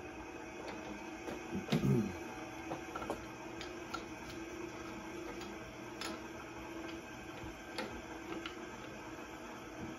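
Milling machine table power feed running, a steady motor hum as it moves the table, with scattered light clicks.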